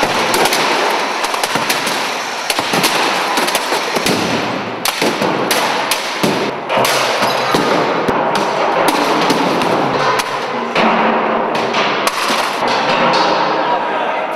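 Household appliances such as washing machines and televisions being smashed by several people at once, with many irregular crashing and clanging impacts of metal and plastic over a continuous loud din.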